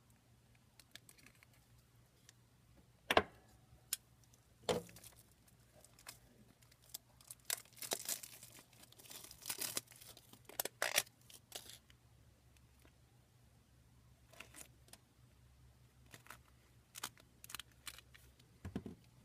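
A knife cutting through a rubber bicycle inner tube while the tube is handled. Scattered scrapes and clicks give way to a denser stretch of slicing and rubber rustling in the middle.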